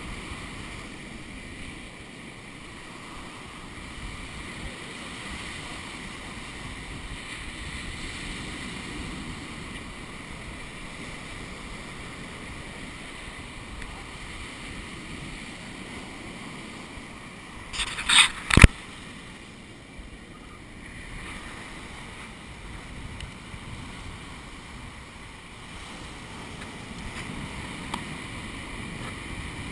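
Steady wash of surf and wind, with a quick cluster of three or four sharp knocks about two-thirds of the way through, the last one loudest.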